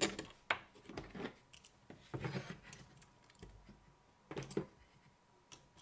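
3D-printed PLA plastic scissor mechanism being handled and fitted together, a prop holder slid into place on its slide: irregular plastic clicks and clacks.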